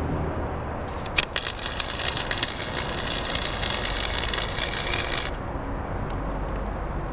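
Harbor Freight 90-amp flux-core wire welder arc crackling for about four seconds while tacking mild steel pipe on DC electrode negative. It starts about a second in with a sharp pop and cuts off suddenly.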